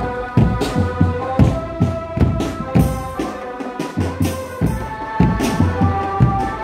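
Drumband music: drums strike a steady, driving beat under a melody of held notes that step from pitch to pitch.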